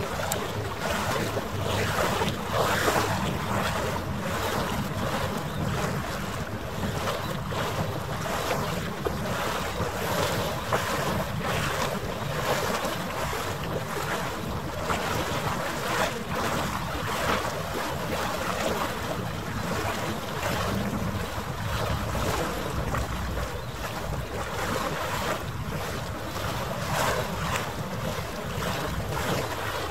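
Wind buffeting the microphone beside harbour water: a rushing noise that swells and fades in quick gusts, with a faint steady hum underneath. The recording is sped up nearly three times.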